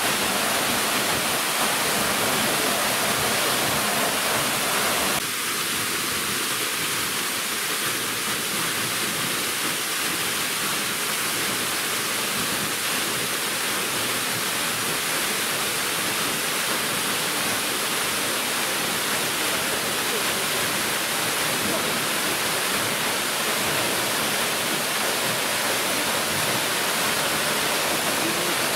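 Steady rush of water, loud and even. About five seconds in it shifts slightly and becomes a touch quieter, then carries on unchanged.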